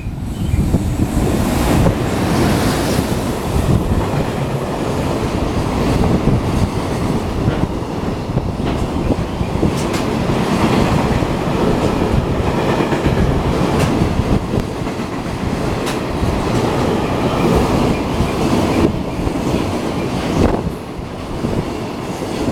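Express freight train hauled by a JR Freight Class EH500 electric locomotive passing at speed: a loud, steady rumble of wagon wheels on the rails with a clickety-clack over the rail joints, easing a little near the end.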